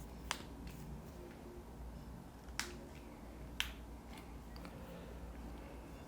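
Three sharp, isolated clicks over a steady low room hum.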